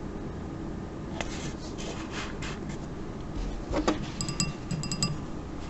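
Handling noises at a painting desk: a few soft rubs, then a low knock as the miniature's painting handle is set down on the desk, followed by a quick run of light clicks with a faint ring.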